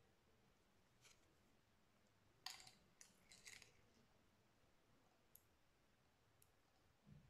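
Faint handling noise: a few soft clicks and rustles as a white rubber watch strap is worked through its keeper and metal buckle. The loudest cluster falls around the middle.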